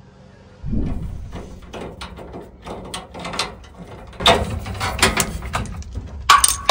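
Hand-tool clicking and metallic clatter on the neutral bar lugs of a main electrical panel, starting about half a second in and growing louder from about four seconds in.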